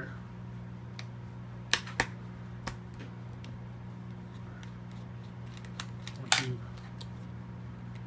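Small screwdriver loosening the screw that holds the hard-drive caddy in an HP ProBook 6550B laptop: a few sharp clicks and ticks of the tip on the screw and metal caddy, the loudest about two seconds in and again past six seconds, over a steady low hum.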